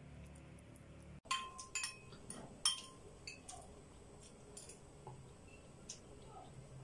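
A metal spoon clinking against a ceramic bowl while eating, several sharp clinks that ring briefly, bunched about a second in, then fainter scraping ticks.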